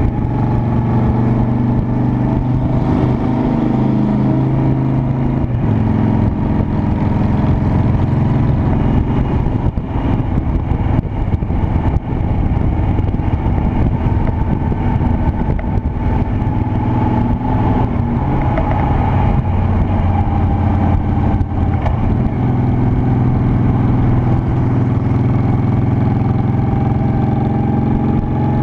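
Honda Shadow Spirit 750's V-twin engine running while the motorcycle is ridden, its pitch rising and falling with speed, with a brief dip a few times.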